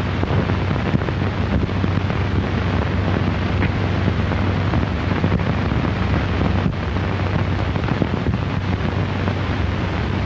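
Steady hiss and low hum of an old 1930 optical film soundtrack, with a few faint crackles.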